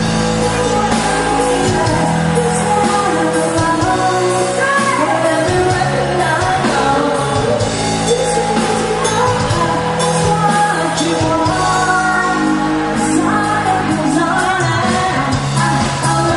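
A band playing a song with a lead singer, the music and vocals running without a break.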